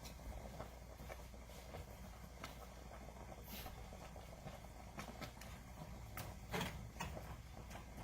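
Faint kitchen handling sounds: scattered light clicks and knocks over a low steady hum, with a louder short clatter about six and a half seconds in.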